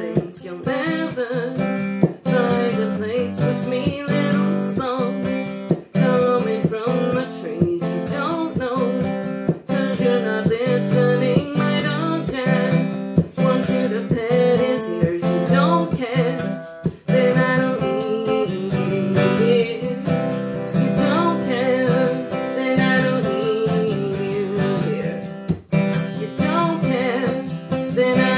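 Acoustic guitar strummed and picked in a steady rhythm, with a woman's singing voice over it in parts.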